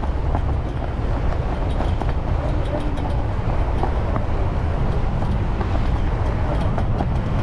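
Passenger ferry's engines running with a steady low rumble, with faint ticks and rattles scattered through it.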